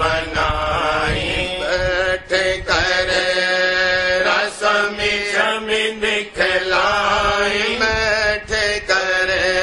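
A voice chanting a Radhasoami devotional hymn (shabd) in a drawn-out, melodic style over a steady low drone.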